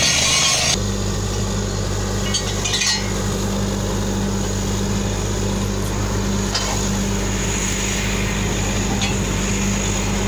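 Borehole drilling rig: the loud hiss of air blowing cuttings out of the hole cuts off about a second in, leaving the rig's engine running steadily. A few light metal clinks come through over it.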